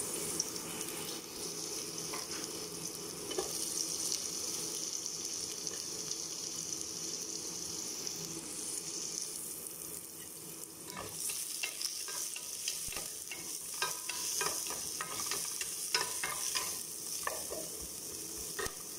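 Sliced onions sizzling in a little hot oil in a nonstick pot, a steady high hiss. From a little past halfway, a wooden spatula stirs them, scraping and tapping against the pan bottom in a run of short knocks.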